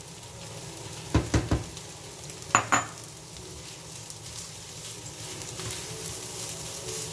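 Rice and just-added raw beaten egg sizzling steadily in a hot nonstick frying pan as they are stirred with a silicone spatula. About a second in come three sharp knocks, then two more shortly before the three-second mark, of utensils striking the pan.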